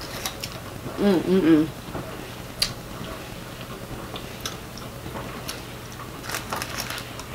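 Mouth sounds of someone eating cheese fries: scattered chewing clicks and smacks, thickest near the end, with a short hummed "mm" about a second in.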